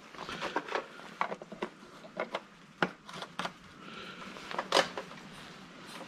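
Scattered clicks and light knocks from gloved hands working the controls of a Poulan Pro snowblower that is not running. A sharper knock comes about three seconds in and a louder one near the five-second mark.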